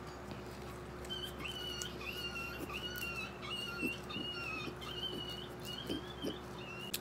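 A bird chirping faintly and repeatedly, short calls about two a second, beginning about a second in, over a low steady hum.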